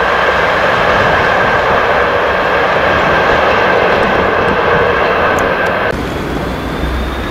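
Freight train of tank wagons rolling along the track: a loud, steady rushing noise with a steady high squeal running through it. It cuts off abruptly about six seconds in, leaving a quieter outdoor background.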